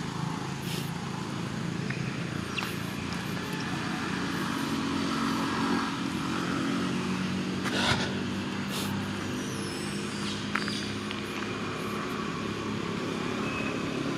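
An engine running steadily, its pitch shifting a little around the middle, with a few sharp clicks over it.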